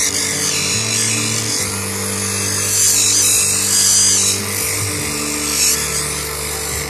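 Motor-driven wheel grinding a moss agate cabochon held against it by hand: a steady, hissing grind. Music plays underneath.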